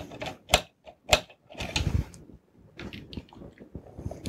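Small screwdriver driving screws into the metal fan mount of a drive enclosure. Three sharp clicks in the first second and a half, a longer scraping rasp about two seconds in, then lighter scratching and ticking.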